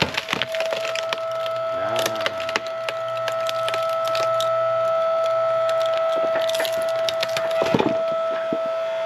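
Hydraulic log splitter forcing a log apart: the wood cracks and splinters at the start, about two seconds in with a short creak, and again near the end, over the steady whine of the splitter's hydraulic pump.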